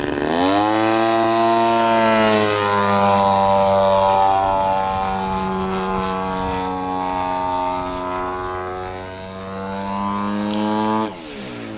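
Radio-controlled aerobatic airplane's engine and propeller, throttled up sharply at the start and held at high revs with slow swells and dips in pitch. It throttles back abruptly about eleven seconds in.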